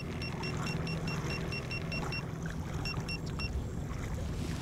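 An electric boat motor runs with a steady low hum. Over it comes a rapid run of short, high electronic beeps, about six a second, which pauses briefly and stops about three and a half seconds in.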